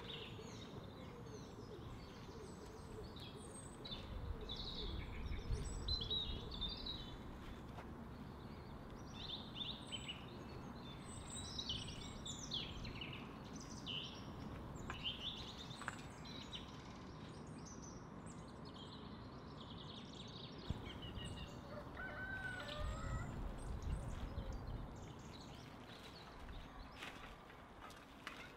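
Small birds chirping and calling on and off over a steady low outdoor background noise, which swells into a louder low rumble about five seconds in and again a little past twenty seconds.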